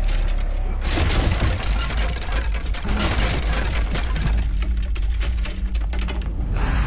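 Dramatic background score: a sustained deep bass drone under dense crackling, hissing noise.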